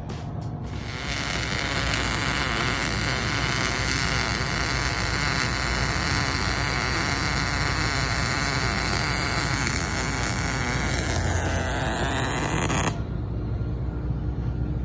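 MIG (wire-feed) welding arc running a bead: a steady, even noise that starts about a second in, holds for about twelve seconds and cuts off suddenly when the trigger is released.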